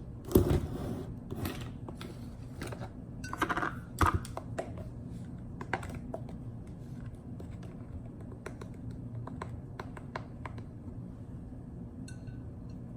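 Small clicks and taps of a measuring spoon and spice containers being handled while dry spice is spooned into a bowl. The clicks come thick in the first few seconds and turn sparse after that.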